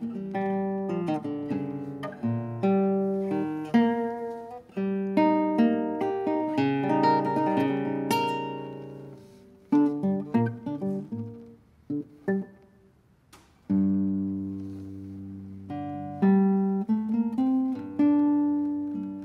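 Solo nylon-string classical guitar playing plucked melody and chords, with a fast upward run about eight seconds in. The music dies away almost to silence near the middle, then comes back with a deep bass note.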